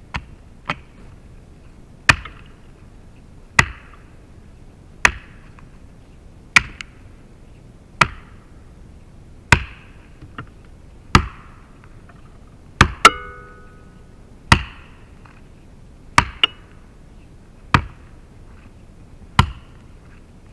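A 4 lb Dayton-pattern felling axe chopping into a birch trunk, with a sharp woody chop about every one and a half seconds, as the notches for a rotational hinge are cut.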